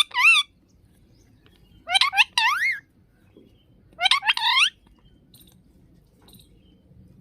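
Parrot giving short warbling calls with a wavering pitch, in three bursts about two seconds apart.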